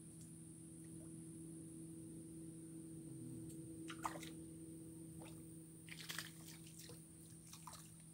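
Faint small splashes and drips of water from wading in a river, a few short ones about four, six and near eight seconds in, over a steady low hum.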